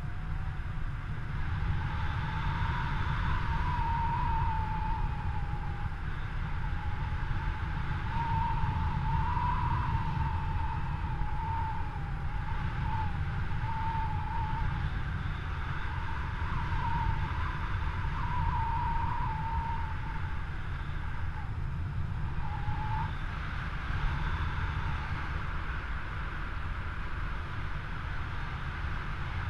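Airflow buffeting the microphone of a camera carried on a paraglider in flight: a steady low rush of wind noise, with a thin wavering whistle that comes and goes.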